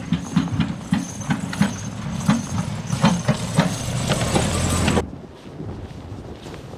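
Footsteps crunching in snow, about three a second, over a steady low rumble. The sound drops off suddenly about five seconds in, leaving a quieter, noisy background.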